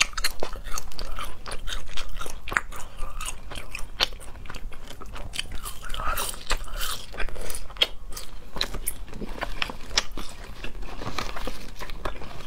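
Biting and chewing latiao, spicy Chinese gluten-strip snacks: a dense, irregular run of sharp crunchy snaps and clicks.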